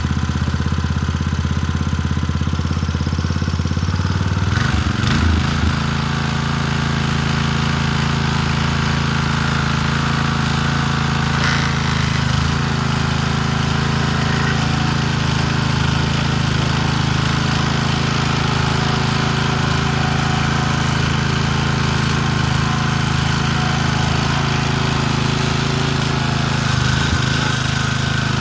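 Briggs & Stratton small engine on a 1993 MTD lawn edger running steadily, its note shifting about four to five seconds in, then holding even.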